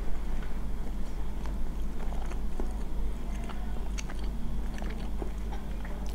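Close-miked wet chewing and small mouth clicks of someone eating Samyang carbonara ramen noodles, over a low steady hum. A metal fork clinks against the plate about four seconds in.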